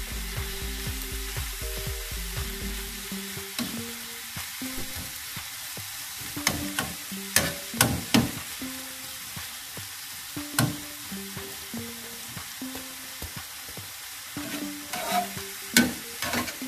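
Chopped broccoli and tomato frying in a dark-coated pan with a steady sizzle, stirred with a metal utensil that scrapes and clicks against the pan every so often.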